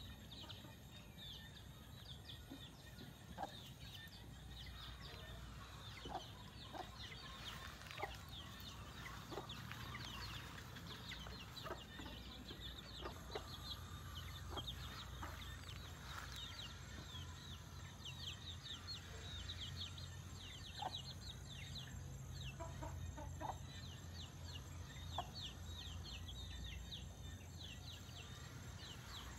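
Chickens clucking and chirping, with many short, high chirps repeating throughout over a faint low rumble.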